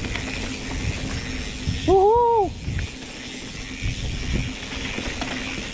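Mountain bikes riding a dirt trail: an uneven low rumble of wind and tyres on the microphone, with a faint steady hum. About two seconds in comes a short, high call from a child's voice that rises and falls.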